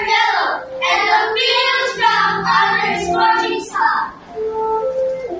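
A group of children's voices singing together in quick syllables, breaking off about four seconds in; a few held notes follow near the end.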